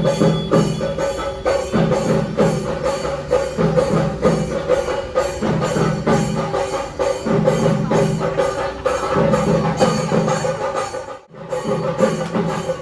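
Background music with a steady percussive beat and a repeating bass figure; it cuts out for a moment about eleven seconds in, then carries on.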